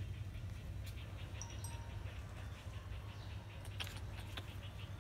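Faint animal calls, short and scattered, over a steady low rumble, with a few sharp clicks about four seconds in.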